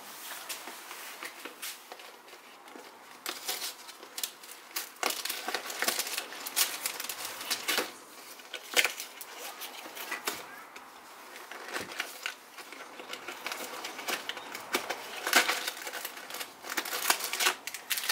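Irregular crinkling and rustling of handled material, with many small sharp clicks scattered through it.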